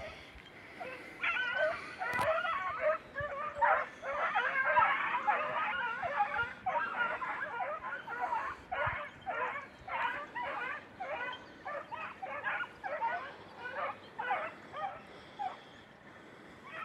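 Hunting beagles giving tongue in high, yelping cries as they run a hare. The cries come thick and overlapping for the first several seconds, then thin to a string of separate yelps, about two or three a second, growing fainter toward the end.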